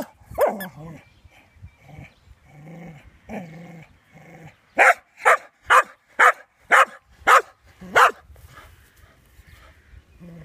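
Cocker spaniel barking seven times in a quick, even run of about two barks a second, after a few softer, lower sounds from the dog. The barks are a play demand, the dog having dropped its tennis ball to get someone to throw it.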